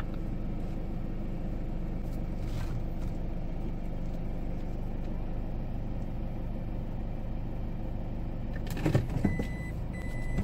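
Car engine idling, heard from inside the cabin as a steady low hum. About nine seconds in comes a clunk with a few clicks as the car door is opened, then the car's warning chime starts beeping, a high tone repeating at an even pace.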